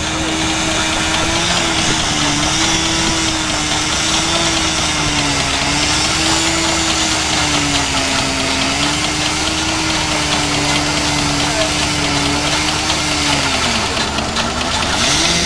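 An engine running steadily with a droning hum that wavers slowly in pitch, dips near the end and then recovers, over a steady hiss.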